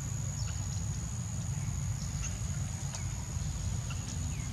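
Outdoor ambience: a steady high-pitched insect drone over a low rumble, with a few short chirps and squeaks here and there.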